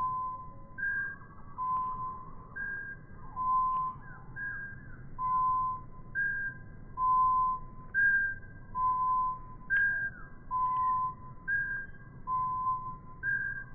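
Great tit song played back slowed down: a clear two-note whistle, a higher note then a lower one, repeated steadily about every two seconds, its pitch deepened by the slow playback.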